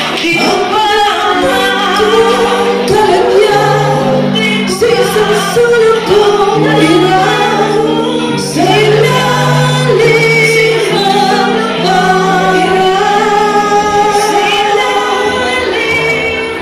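A woman singing a ballad into a handheld microphone over a backing track of sustained chords.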